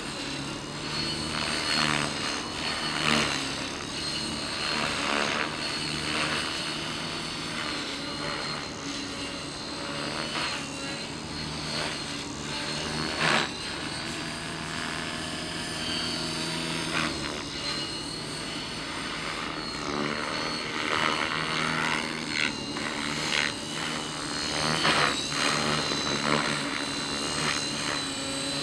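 600-size electric radio-controlled helicopter in flight: a steady high motor and gear whine over the low hum of the spinning rotor, with a few brief louder swells as it manoeuvres.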